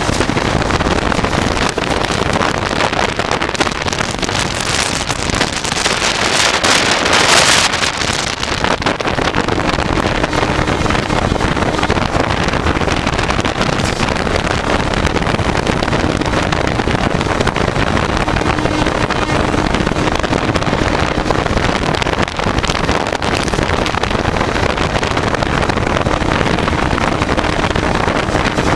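Rushing wind and running noise of an express train at about 110 km/h, heard aboard the train with wind buffeting the microphone; the rush swells louder about five to eight seconds in. A locomotive horn sounds faintly in three long, steady blasts over the second half.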